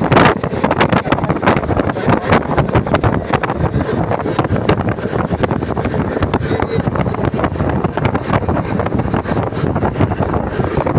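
Express train running at speed, heard from an open coach door: wind buffeting the microphone over a steady rush of wheel and track noise, with many short knocks throughout.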